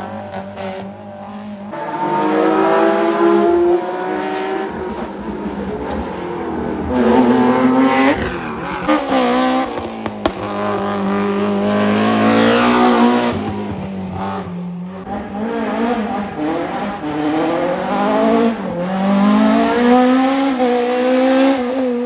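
Historic rally car engines at full throttle on a special stage, revving up through the gears with sharp drops in pitch at each gear change and lift-off, repeating several times as cars go by.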